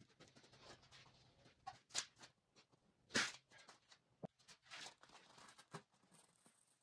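Quiet, scattered footsteps and scuffs on a concrete floor with rustling handling noise, the loudest a short scuff about three seconds in.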